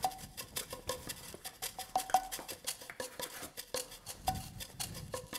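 Background music: a fast, even run of light clinking percussion with short notes recurring at the same two pitches.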